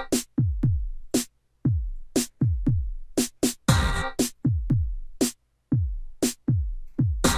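Background electronic music: a sparse drum-machine beat of deep kick drums that drop in pitch, with sharp crisp hits between them.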